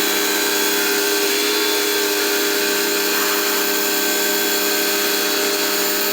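Homdox 2950PSI electric pressure washer running steadily: its electric motor and pump hum at an even pitch under the hiss of the high-pressure water jet blasting a line of grime and moss off a patio block.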